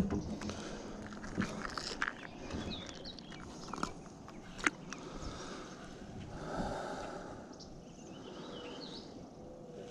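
Handling noise as a freshly caught largemouth bass is unhooked and held in a kayak: scattered sharp clicks, knocks and scrapes of hands, lure and hull, busiest in the first half.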